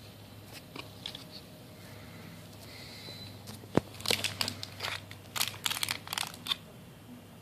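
Plastic packaging crinkling and rustling as items are handled, with a sharp click a little under four seconds in followed by a burst of denser crinkling for about two seconds.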